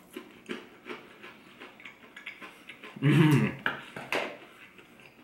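Close-up crunching and chewing of crispy fried chicken, a string of short crunches, with a loud closed-mouth "mmm" of enjoyment about three seconds in.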